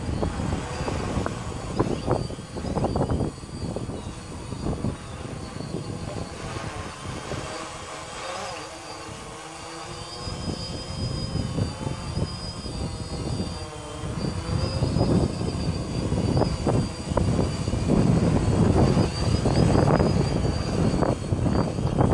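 Quadcopter drone's electric motors and propellers whining in flight, the pitch shifting as it manoeuvres, with irregular low rumbles underneath. It gets louder in the second half as the drone comes down close and lands on the grass.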